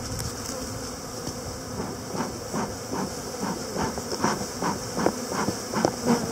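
Honey bees buzzing around an open hive: a steady hum, with short louder buzzes coming and going every half second or so from about two seconds in.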